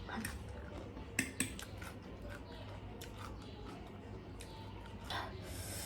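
Eating utensils clinking and tapping on a plate while noodles are eaten: scattered light clicks, two sharper ones just over a second in. A short rushing noise comes near the end.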